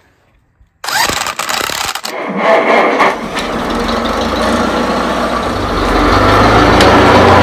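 1955 Farmall Cub's four-cylinder flathead engine being cranked for about a second, catching, and then running steadily, growing louder near the end.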